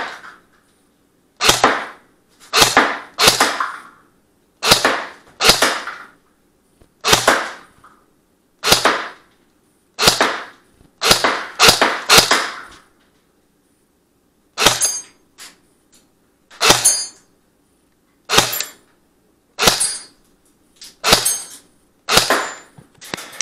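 Lancer MK18 airsoft electric rifle firing single shots, about twenty sharp cracks spaced roughly one to two seconds apart, each with a short ring.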